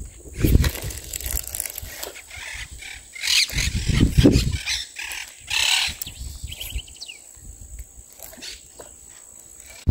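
Fishing gear handled at a creek bank: irregular rustling and knocking. A short bird call comes about seven seconds in, over a faint steady high insect drone.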